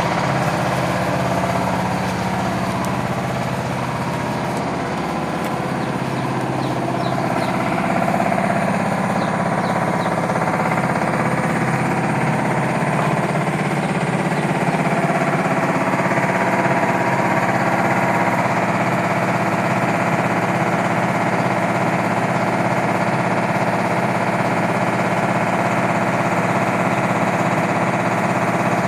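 Rice mill (YMM 20 huller with grain elevator) running steadily under load, driven by a Yanmar TF300 single-cylinder diesel engine, the engine's note mixed with the rush of the milling machinery.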